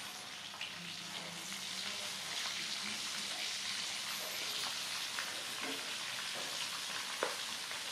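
Quail frying in hot oil: a steady sizzle with scattered small crackles and pops, one sharper pop near the end.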